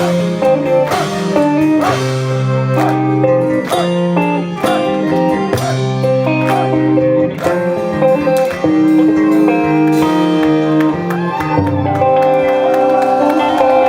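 Live folk-rock band playing an instrumental passage, guitar to the fore over sustained bass notes.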